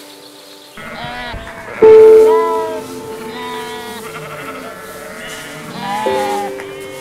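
Ewe and young lambs bleating, about four calls, the loudest about two seconds in, over soft background music.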